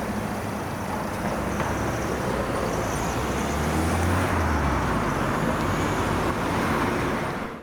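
Road traffic noise, with motor vehicles passing; a low engine hum swells about three seconds in and eases off again. The sound cuts off abruptly at the end.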